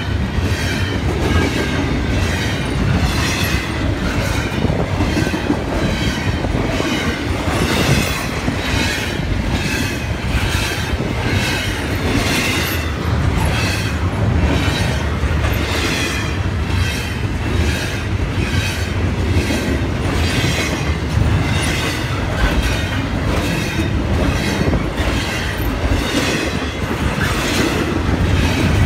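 Double-stack container train rolling past at speed: a steady rumble, with wheel clacks over the rail joints at about one and a half a second and a wavering metallic wheel squeal on top.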